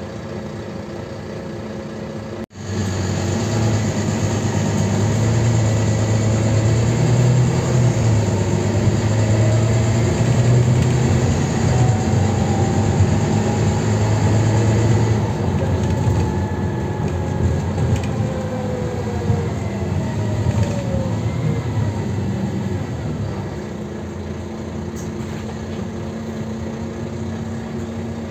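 Volvo B9TL double-decker bus's diesel engine heard from inside the cabin. It idles, the sound breaks off for an instant about two and a half seconds in, and then it runs louder under load as the bus pulls away. The engine note rises and falls before easing back to a steadier, quieter running near the end.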